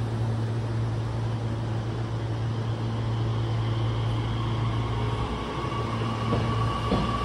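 Nishitetsu 3000 series electric train pulling away from a platform: a steady low hum while it stands, then a rising electric whine from its inverter and traction motors as it starts to move, about four seconds in.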